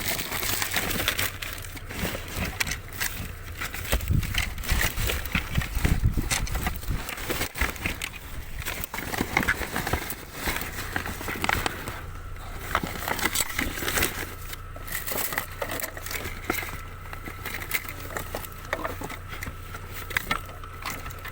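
Hands rummaging through a pile of discarded household items: repeated rustling, crinkling and light clicks and clatters, over a steady low hum.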